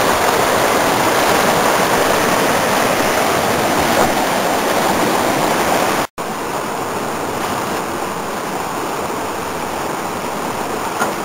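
Creek whitewater rushing through a rapid in a steady, dense rush. About six seconds in there is a brief dropout, and after it the water is softer.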